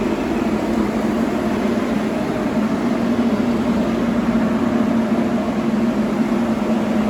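A motor-driven workshop machine running steadily: a low hum with an airy hiss over it.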